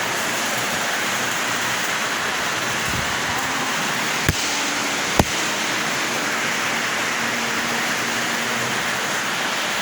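Heavy tropical rain pouring in strong wind, a steady dense hiss. Two sharp clicks cut through it, about four and five seconds in.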